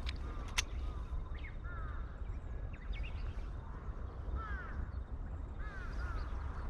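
A crow cawing, several short calls in three small groups, over a steady low rumble of wind on the microphone. Two sharp clicks come near the start.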